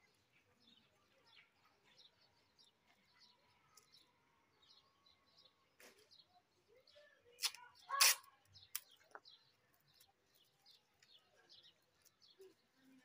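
Small birds chirping faintly throughout. A few sharp crackling rips in the middle, loudest about eight seconds in, from adhesive tape being pulled off a roll and torn while taping a paper kite.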